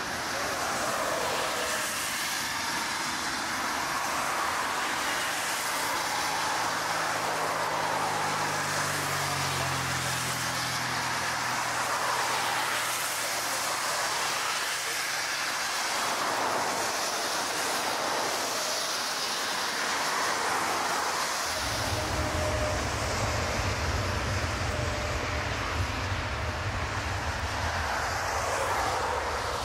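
Jet airliners on a rain-soaked runway: a steady rush of jet engine noise and water spray. A low hum falls in pitch about a third of the way in, and a heavy low rumble sets in about two-thirds of the way through.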